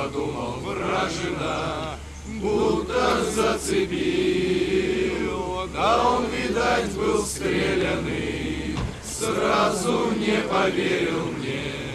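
Slow chanting voices with long held notes, over a low steady hum that stops about nine seconds in.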